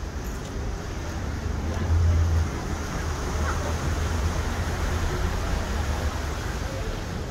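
Harbour ambience: a steady low rumble that swells briefly about two seconds in, under an even wash of distant background noise.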